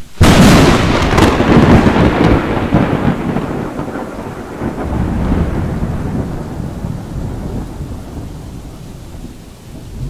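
Thunder from a close lightning strike: a sharp crack right at the start, then a loud crash that rolls on as a long low rumble, slowly fading.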